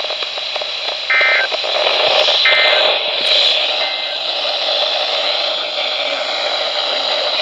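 Emergency Alert System end-of-message data signal: three short bursts of data tones about 1.3 s apart, the last one fainter, marking the end of the flash flood warning. A steady hiss of radio static runs under them.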